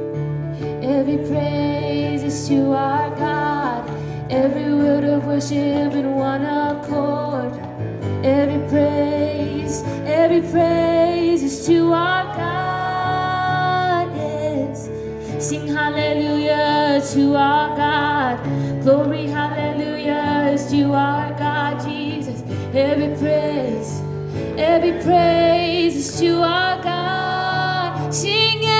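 Live church worship music: a woman singing a melody over a band's sustained chords.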